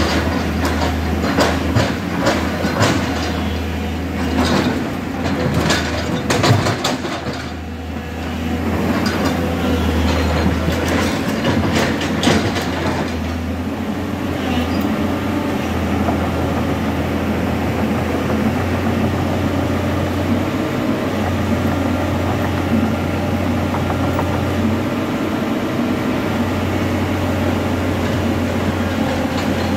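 Excavator's diesel engine running steadily with a deep drone, with a run of sharp knocks and rattles from the working machine over roughly the first dozen seconds, after which only the engine and hydraulic whine carry on evenly.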